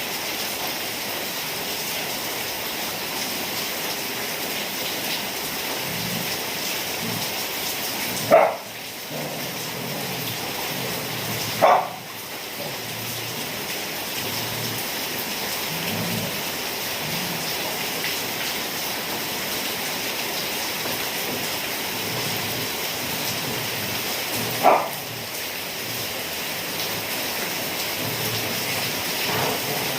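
Steady rain falling, an even hiss of rain on surfaces. Three brief, loud, sharp sounds cut through it, about eight, twelve and twenty-five seconds in.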